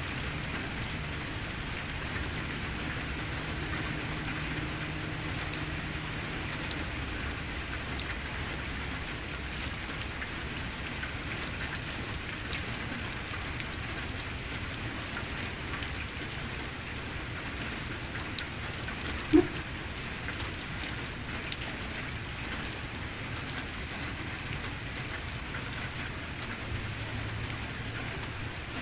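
Steady thunderstorm rain falling on surfaces, with many small drop ticks throughout. A single brief, sharp ping about two-thirds of the way through stands out above the rain.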